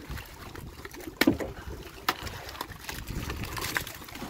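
Sharp knocks against a small fishing boat's side, the loudest about a second in and two more later, over a steady low wash of water, as a hooked tuna is gaffed alongside.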